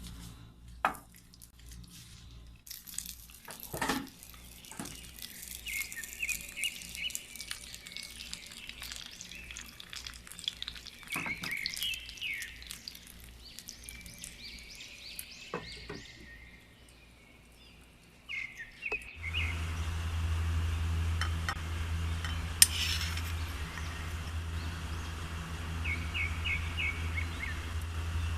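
Kitchen utensils clinking and knocking against dishes, with birds chirping in the background. About two-thirds of the way in, a steady low hum with a hiss starts and carries on.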